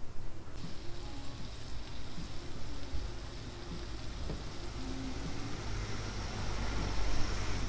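Bacon, egg and buttered toast sizzling on a hot flat-top griddle: a steady hiss that swells a little near the end.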